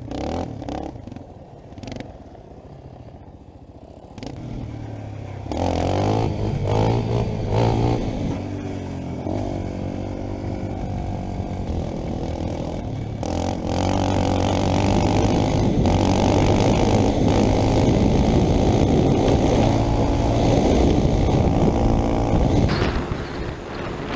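A four-wheeler's (ATV) engine. It runs low at first, then revs up with the pitch rising and falling from about four seconds in. From about halfway it runs hard and fairly steadily, and it eases off a second or two before the end.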